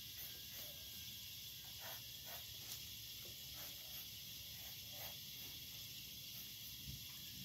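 Marker tip drawing on sketchbook paper: a handful of short, soft scratchy strokes over a steady background hiss.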